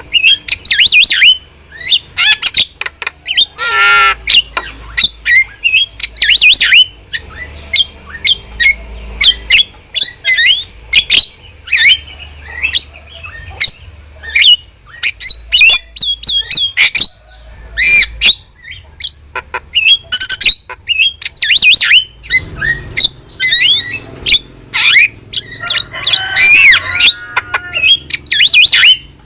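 A starling (jalak) chattering in a rapid, varied run of high whistles, clicks and squawks, with a longer harsh call about four seconds in and another near the end. This is the loud, full 'gacor' song used as a model for training jalak birds.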